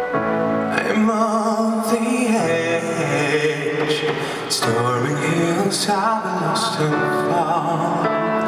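Male solo vocalist singing a slow pop ballad with vibrato, live on a microphone, over sustained instrumental backing.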